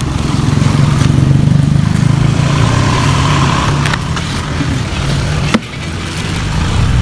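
Steady engine noise, as of a motor vehicle running close by, with a sharp click about five and a half seconds in, after which it is a little quieter.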